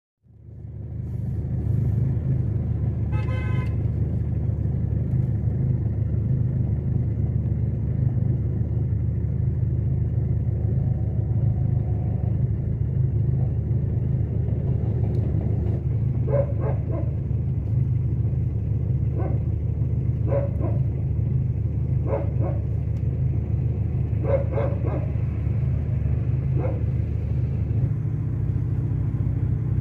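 Car engine running steadily, a low hum heard from inside the cabin. Over it a dog barks in short single and double barks, several times in the second half.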